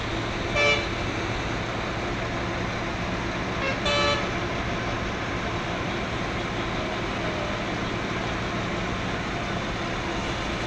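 Two short vehicle horn toots, one just under a second in and a slightly longer one about four seconds in, over a steady din of road traffic and a large crowd.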